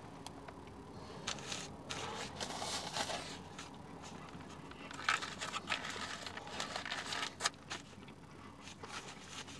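Foil sandwich wrapper crinkling and crackling as it is handled, in irregular bursts about two seconds in and again from about five to eight seconds, with sharp crackles.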